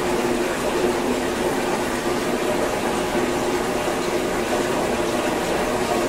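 Aquarium filter and pump running: a steady rush of moving water with a faint low hum underneath.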